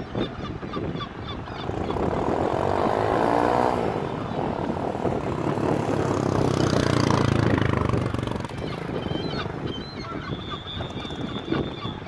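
A flock of seagulls calling over one another in many short overlapping cries, with a rushing noise that swells about halfway through.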